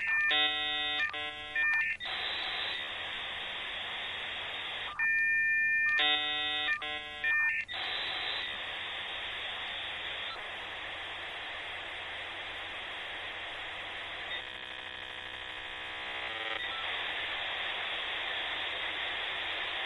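Dial-up modem handshake over a telephone line: two bursts of warbling multi-tone chirps separated by a steady two-note tone, then a long steady hiss of data noise, with a rippling buzzy patch about fifteen seconds in.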